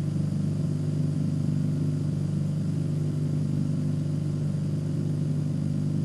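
Steady low electrical hum that holds level throughout.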